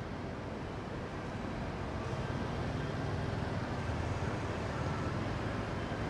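Steady city street ambience with a low traffic rumble that grows a little louder about two seconds in.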